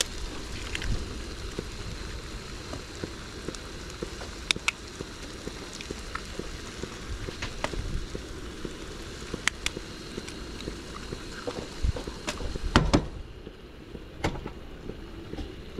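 Food frying in a pan: a steady sizzle with scattered sharp pops and crackles.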